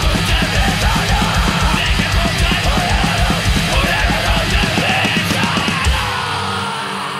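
Fast thrashcore punk music: rapid pounding drums and distorted guitars. About six seconds in, the band hits a final beat and a guitar chord rings on, slowly fading.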